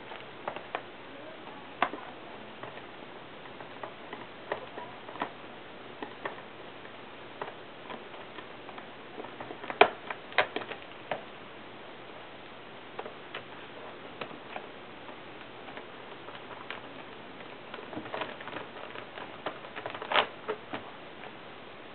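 Small screwdriver ticking and clicking against the screws and metal housing in a MacBook's battery bay as the housing screws are driven back in: irregular light clicks, with a few sharper ones about halfway through and near the end.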